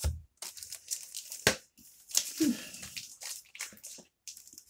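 Comic books in clear plastic bags crinkling and rustling as they are handled and shuffled, with a sharp tap about one and a half seconds in.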